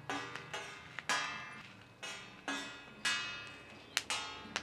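A metal spoon knocking and scraping on a steel comal while dried árbol chiles are turned on it. There are a series of sharp taps, each leaving a ringing tone that fades within about half a second, and a few quick clicks near the end.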